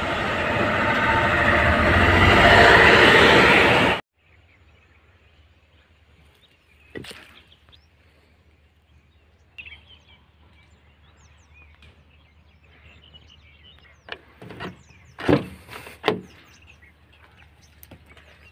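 Loud engine and road noise inside a moving truck cab, growing louder before it cuts off suddenly about four seconds in. Then a quiet outdoor stillness with a low hum and faint birds chirping, broken by a few sharp knocks near the end.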